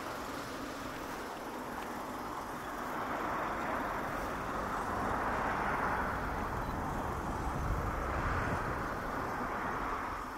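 Outdoor road-traffic noise: a vehicle's rushing sound swells from about three seconds in, with a low rumble around three-quarters of the way through, and eases off near the end.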